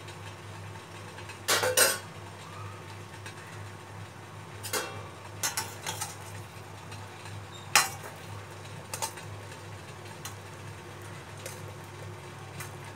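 A utensil clinking and scraping against a perforated steel steamer plate as leaf-wrapped steamed prawn parcels are turned over: several separate sharp clinks, the loudest about one and a half seconds and eight seconds in, over a steady low hum.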